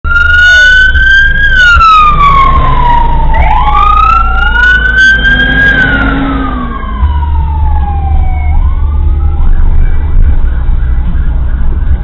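Two fire truck sirens wailing in slow rising and falling sweeps that overlap and cross each other. They fade away after about nine seconds, over a steady low rumble of road noise.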